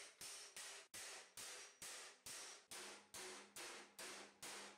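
Hammer striking a 1.5 mm mild steel gauntlet plate held over a steel stake, shaping it: a steady run of ringing metallic blows, about two and a half a second.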